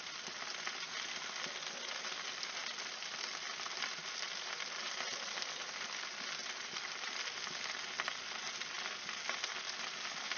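Bacon-wrapped chicken sizzling and crackling on a barbecue grill: a steady hiss with a scatter of fine pops.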